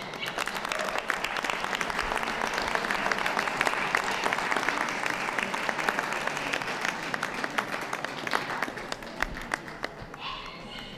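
Audience applauding and clapping. It builds over the first couple of seconds, holds, then thins out toward the end.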